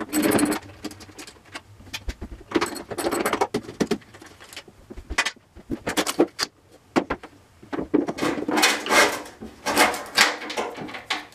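Irregular knocks, clicks and rustling as a rear spoiler is worked loose from a detached car trunk lid by hand, with a hand tool at its single mounting bolt.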